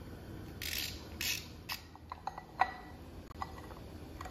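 Socket ratchet clicking as the crank bolt is run into the harmonic balancer of a Chevy 454 big-block: two short runs of clicking in the first second and a half, then scattered light metal clinks.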